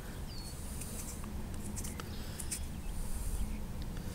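Fingers rubbing and crumbling damp soil off a freshly dug lead bullet: faint scratching with a few small clicks over a low rumble.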